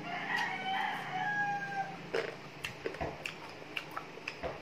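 A rooster crows in the background, one drawn-out call of about two seconds. After it comes a series of sharp, quick clicks and smacks of close-up chewing of crispy chicharong bulaklak.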